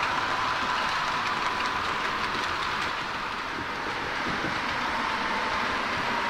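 H0-scale model trains running on the layout's track: a steady whirring rumble of small metal wheels on rails with a thin, steady whine, and faint clicks as the wheels cross rail joints.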